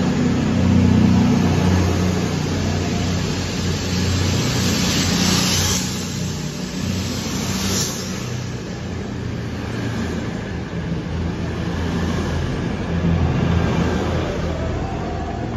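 CrossCountry Class 220 Voyager and Class 221 Super Voyager diesel multiple units departing and gathering speed, their underfloor diesel engines running under power as the coaches pass close by. The steady engine drone is joined by a rush of passing coaches about five to eight seconds in.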